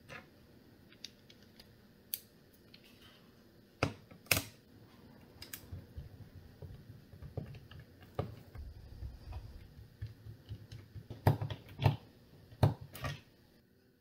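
Phillips screwdriver turning out the small screws of an HP Pavilion Gaming 15 laptop's bottom cover: scattered light clicks and ticks, a low rubbing stretch in the middle, and a few louder clicks near the end.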